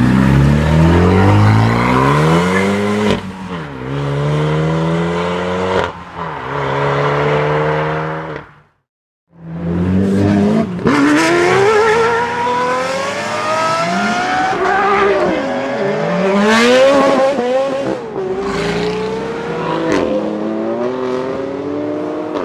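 Supercar engines accelerating, each rise in pitch falling back at a gear change. About nine seconds in the sound drops to silence for half a second, then another run of hard acceleration climbs through several more gears.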